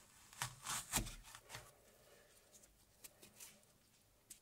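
Apple corer twisting through a peeled apple and pulling out the core: a cluster of short scrapes and clicks in the first second and a half, then a few faint clicks.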